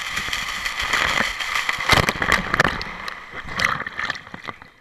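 Water rushing and splashing around a rider sliding down an enclosed water-slide tube, full of crackles and knocks. It dies away near the end as the rider plunges into the splash pool.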